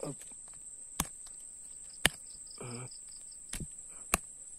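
Insects droning steadily with a high, even tone, joined at times by a fast, evenly pulsed chirping. Four sharp clicks stand out over it, about one, two, three and a half and four seconds in, the one at two seconds the loudest, with a brief short grunt-like sound a little after the middle.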